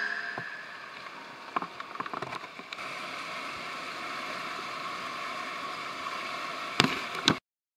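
Whitewater rapid rushing steadily, with a few sharp splashes and knocks early on and a brief louder splash just before the sound cuts off suddenly near the end.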